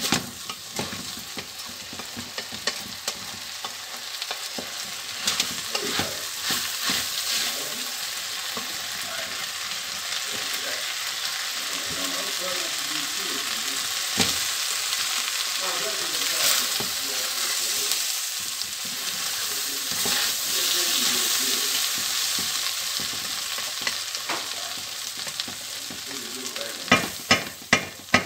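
Uncooked rice grains sizzling and being toasted in oil in a metal pan, stirred and scraped with a wooden spoon. It is a steady sizzle with scraping strokes, and a quick run of sharp knocks near the end.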